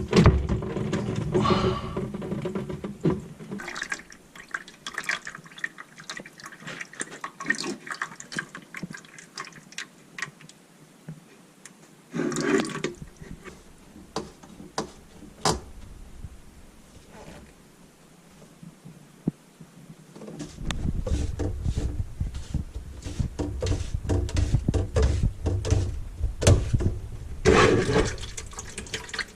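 Water running and splashing, mixed with scattered clicks and knocks of handling; a deeper, louder rush comes in about two-thirds of the way through.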